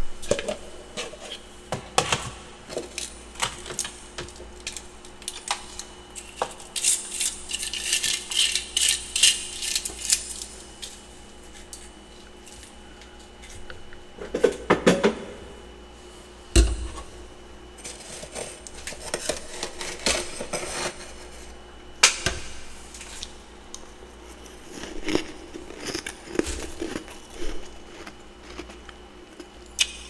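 Powdery freezer frost being crunched and chewed close to the microphone: a long run of crackling crunches, densest about seven to ten seconds in. A metal spoon clinks and scrapes in a bowl between mouthfuls.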